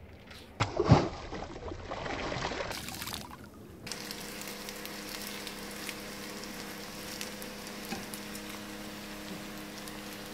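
Slices of bread frying in oil in a pan on a gas stove: an even sizzle with fine crackles over a low, steady hum. Before it, in the first few seconds, there is a loud thump about a second in followed by a rush of noise.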